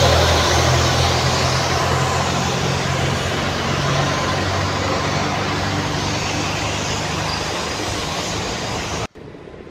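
A car's engine running close by with street traffic noise, a steady low hum that slowly fades as the car moves off. It cuts off abruptly near the end.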